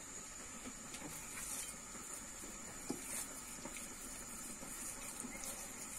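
Faint steady hiss with a few light taps scattered through it.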